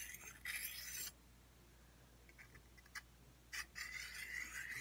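Stainless steel machete blade being honed with a hand-held oiled sharpening stone: gritty scraping strokes, one bout in the first second and another near the end, with a single light click between.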